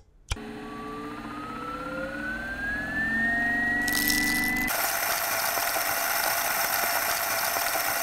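Timemore Sculptor 078 coffee grinder: a click as its start button is pressed, then the motor spinning up with a whine that rises steadily in pitch for about four seconds, with jet-engine vibes. Then coffee beans go into the running turbo burrs, and an even grinding noise takes over until near the end.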